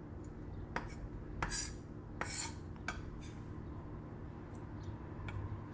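Chef's knife clicking and scraping on a wooden cutting board and against a glass bowl as chopped Kalamata olives are pushed off the blade. A handful of light clicks and two short scrapes, over a low steady hum.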